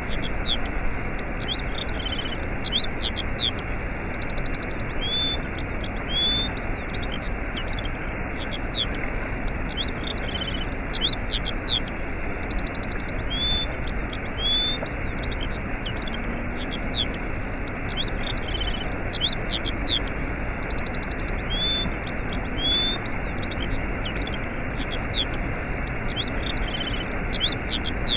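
Waterfall rushing steadily, with small birds chirping and trilling over it; the birdsong is a loop that repeats about every eight seconds.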